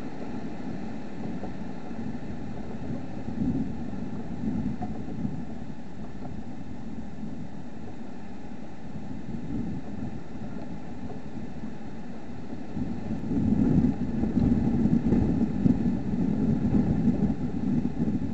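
Steady low rumble picked up by a trail camera's microphone, growing louder and more uneven about thirteen seconds in and easing off near the end.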